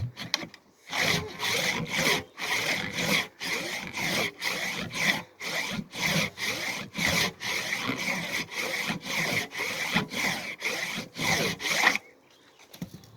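Handsaw cutting through a tree trunk in steady back-and-forth strokes, about two a second. The sawing stops about twelve seconds in.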